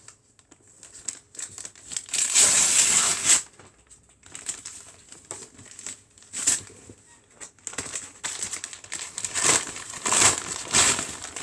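Packaging being torn open and rustled while a parcel is unpacked: a long crinkling tear about two seconds in, then shorter rustles and crinkles near the end.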